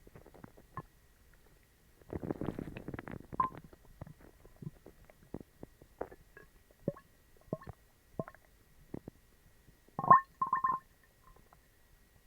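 Human stomach gurgling in a stomach upset by eating dog treats. A run of watery gurgles comes about two seconds in, then scattered short pops and squeaks, and the loudest, squeaky gurgle comes about ten seconds in.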